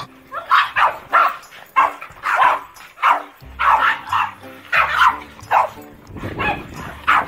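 Several Boston terriers barking repeatedly in short barks, about one or two a second, over background music with held notes and a bass line.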